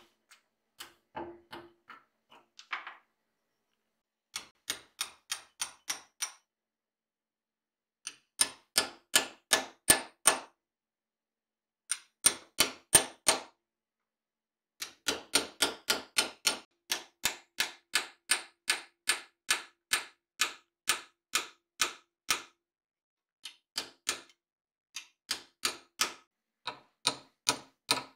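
Small hammer tapping a rusty old hammer head clamped in a steel bench vise, knocking rust scale loose. Sharp metallic taps come about three a second in runs of a few seconds with short pauses, each with a faint ring.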